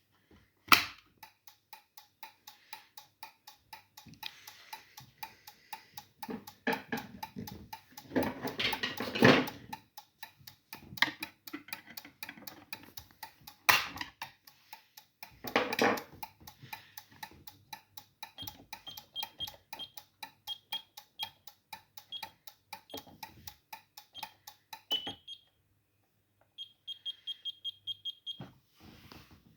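Bolid S2000-4 fire/security control panel's alarm sounder beeping in a steady rapid pattern of about two to three short beeps a second, signalling a fire alarm under test. In the later part a higher, shriller pulsed tone sounds with the beeps. A few louder bursts of noise break in along the way.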